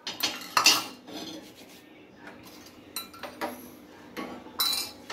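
Steel spoon clinking against a small steel pot of melted ghee and scraping over banana leaves as the ghee is spread on them: several separate light clinks and taps, one near the end with a short metallic ring.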